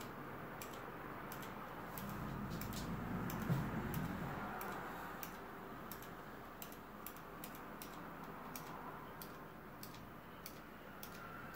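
Outemu Blue clicky mechanical switches on a Redragon K567 Rahu keyboard pressed with the keycaps removed, giving sharp single clicks at irregular intervals.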